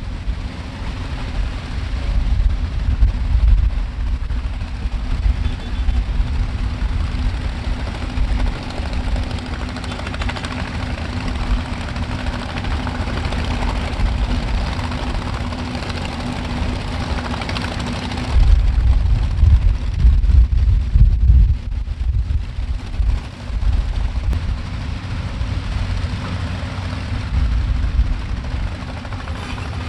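A vehicle engine running steadily with a low drone, and wind rumbling on the microphone, heaviest a little past halfway through.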